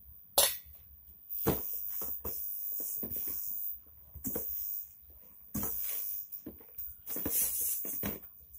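Hands kneading crumbly whole-wheat flour and jaggery dough in a stainless steel bowl: stretches of gritty rubbing and scraping against the metal, with a few sharp knocks on the bowl.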